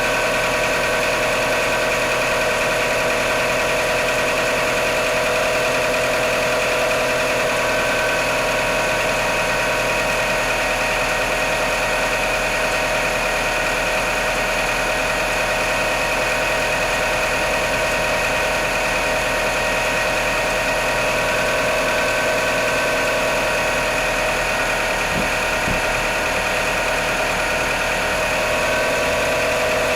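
Mitsubishi Outlander's 4G63 inline-four petrol engine idling steadily after a cold start, with a steady whine over the engine note. This is the engine the owner is recording for knocking sounds on cold start.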